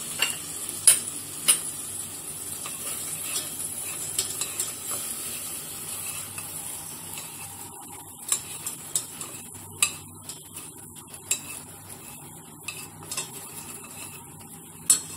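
Toasted bread cubes sizzling in hot caramel syrup in a stainless steel pan while chopsticks stir them, with sharp taps and clicks of the sticks against the pan. The sizzle thins out gradually, and the loudest clicks come about a second in and near the end.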